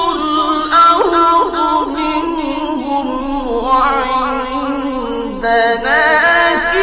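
A man reciting the Quran in a slow, melodic tajweed style, holding long notes with wavering ornaments. A new phrase begins about five and a half seconds in.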